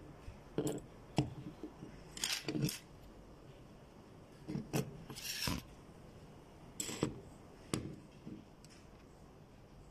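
Digital caliper being slid open and shut and set against a flexible metal tube: a string of sharp clicks and taps, with a longer metallic scrape of the slide about five seconds in.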